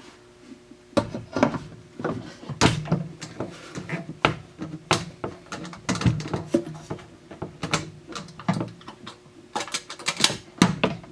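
Irregular wooden knocks and clicks as the bentwood lid of a Singer sewing machine case is lifted off, set back down on its wooden base and shifted into place.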